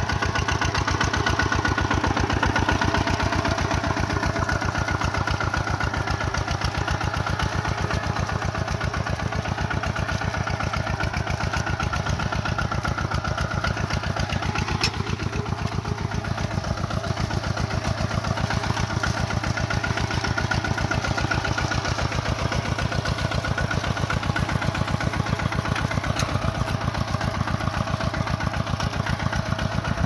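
Kubota single-cylinder diesel engine of a two-wheel walking tractor running steadily under load with an even, rapid beat, pulling a plough through wet paddy mud.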